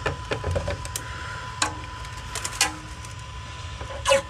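Plastic clicks and knocks from a 3D-printing filament spool being handled, with a louder clunk near the end as the spool is pushed into a plastic filament dry box, over a faint steady tone.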